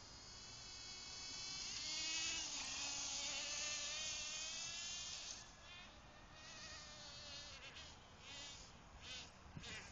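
Small fuel-burning engine of a radio-controlled race car, a high, buzzing whine that wavers in pitch as the throttle is worked. It grows louder as the car passes, fades after about five seconds, then returns in short revving bursts.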